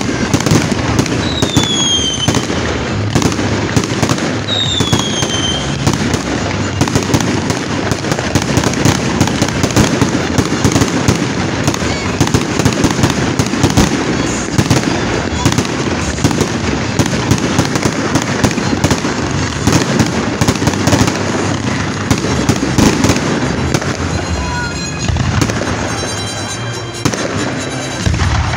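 Fireworks going off in a rapid, continuous barrage of bangs and crackles. Two short falling whistles sound in the first few seconds.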